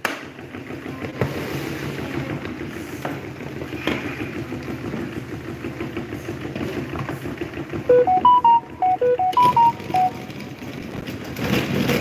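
Small electric table fan humming steadily while it is handled, with a few light knocks. About eight seconds in, a short tune of about a dozen electronic beeps plays quickly for two seconds.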